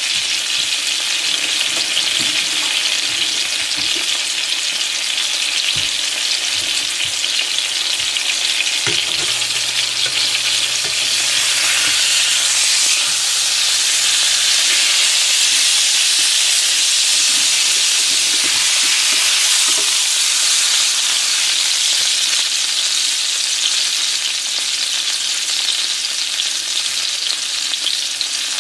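Breaded fish fillets sizzling in hot oil in a nonstick frying pan, a steady crackling hiss. It swells for a while in the middle as the fillets are turned over with a slotted spatula.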